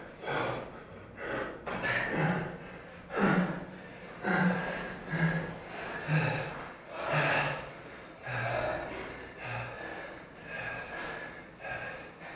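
Hard, rhythmic breathing of men under heavy physical strain: forceful exhales with short low voiced grunts about once a second, from a man bearing the weight of another who is climbing around his body.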